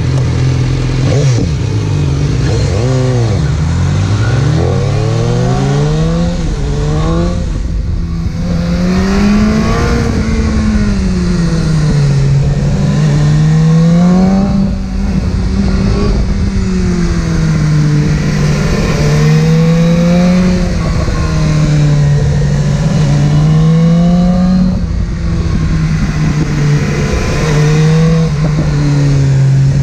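Inline-four sportbike engine under way. The revs drop over the first few seconds, climb again, then rise and fall smoothly every couple of seconds as the throttle is rolled on and off.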